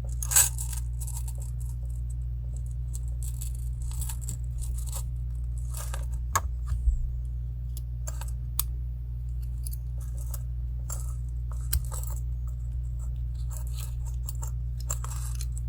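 Small metal clicks and clinks at irregular times as a dog tag and a curb chain with a J-hook clasp are handled, over a steady low hum.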